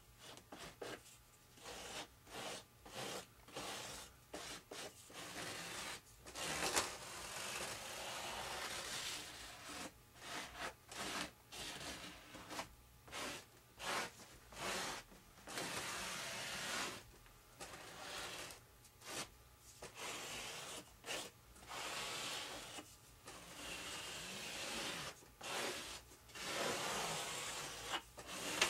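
Repeated scraping strokes of a scraper spreading epoxy over fibre tape on a foam wing: many short strokes, with a few longer drawn-out rubs.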